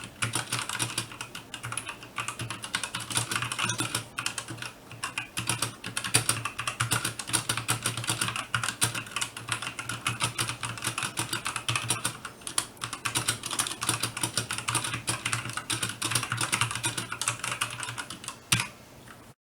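Fast, continuous typing on an RK61 mechanical keyboard with tactile brown switches: a dense, irregular run of key clacks that stops near the end.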